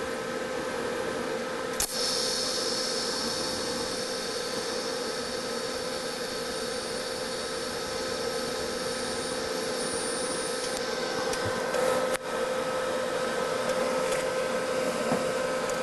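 TIG welding arc burning on automotive sheet steel while filling a hole: a steady hiss with a constant hum under it. It breaks off briefly about two seconds in and again near twelve seconds.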